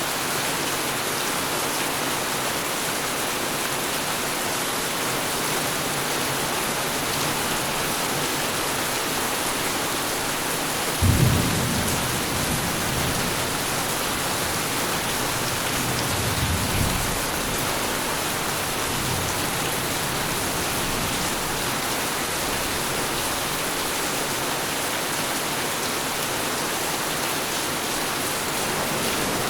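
Tropical storm: heavy rain falling steadily, with a sudden clap of thunder about a third of the way in that rumbles away over a few seconds, and a weaker roll of thunder shortly after.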